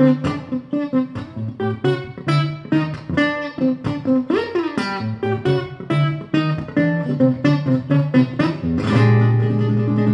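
Solo acoustic guitar, finger-picked in a quick run of notes with a gliding bend in pitch a little under halfway through, closing on a chord left to ring for the last second and a half.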